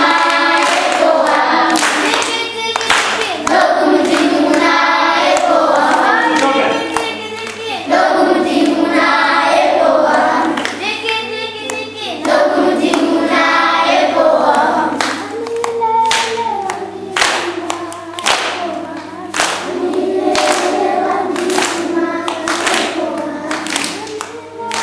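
A group of school children singing together in chorus, with rhythmic hand clapping that grows more prominent in the second half.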